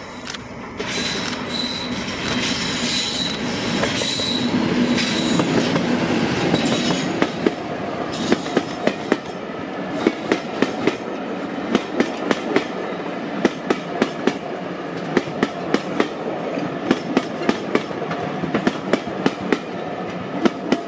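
A British Rail Class 50 diesel locomotive passes close by with its English Electric V16 engine running hard, with a high whine over the first few seconds. Then its coaches roll past, their wheels clattering over the rail joints in a steady rhythm of sharp clicks.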